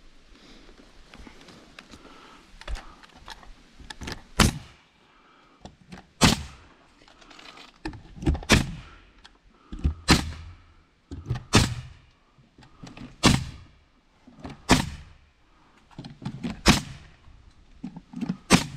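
Bostitch pneumatic coil nailer firing nails through LP SmartSide soffit panel into the wooden framing: about nine sharp shots, one every one and a half to two seconds, starting about four seconds in, with quieter knocks and handling noise between them.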